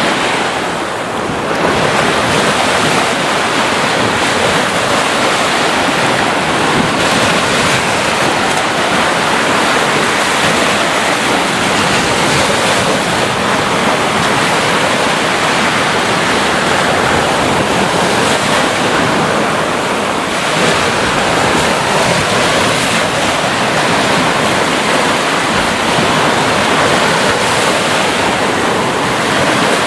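Sea waves: a continuous rush of surf that swells and eases every few seconds.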